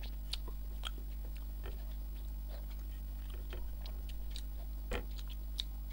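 Close-miked eating: a person chewing food with irregular small mouth clicks and ticks, over a steady low hum.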